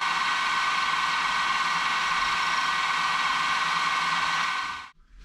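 Milling machine running, its drill bit boring a port hole into a brass model steam engine frame: a steady whine over a hiss that fades out near the end.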